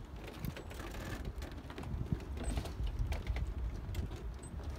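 Footsteps and light taps on a wooden dock, over a steady low rumble of wind on the microphone.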